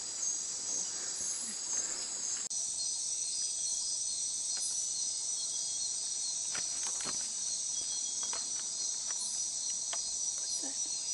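Rainforest night chorus of crickets and other insects: a dense, steady high-pitched trilling that changes abruptly about two seconds in. A few faint clicks and knocks come in the second half.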